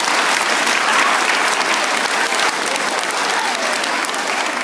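An audience of schoolchildren applauding, dense steady clapping that eases slightly near the end.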